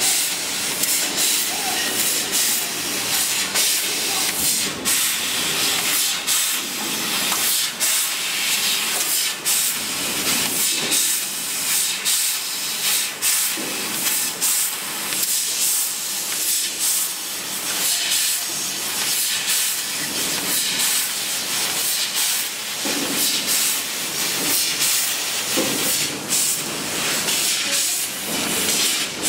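MYT fiber laser cutting machine cutting sheet metal: a steady, loud hiss of assist gas jetting from the cutting head, broken by many brief dips as the head pauses and moves between cuts.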